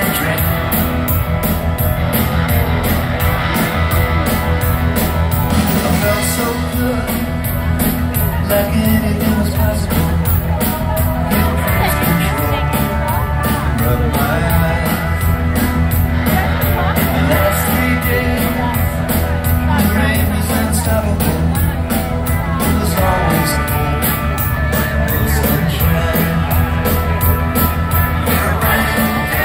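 Live rock band playing loudly with a steady drum beat and a woman singing lead.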